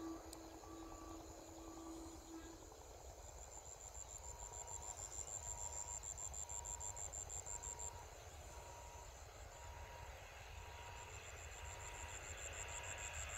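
Faint outdoor ambience: a steady, high, pulsing insect chirr over a low rumble, with a short note repeating about once a second from about four seconds in.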